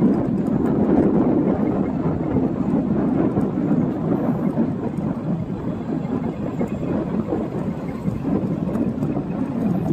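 Steady wind rumble buffeting the microphone of a moving vehicle, with road noise underneath.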